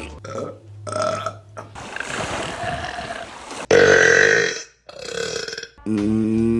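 A run of women's burps, several short ones, a loud burp just past the middle, and a long pitched burp starting near the end.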